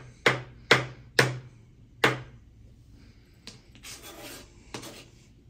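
A kitchen knife chopping boiled eggs on a cutting board: four sharp taps of the blade on the board in the first two seconds, then a few fainter taps and a short scraping sound about four seconds in.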